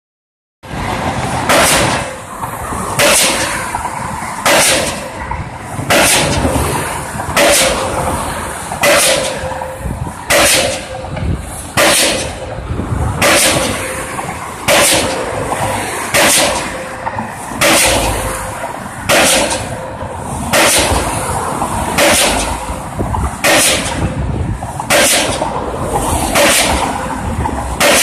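Pile driver's hammer striking a pile in a steady rhythm, one heavy bang about every one and a half seconds.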